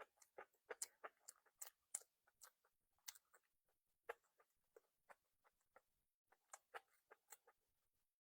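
A person chewing food close to the microphone: soft, irregular mouth clicks and smacks, several a second, pausing briefly midway and thinning out near the end.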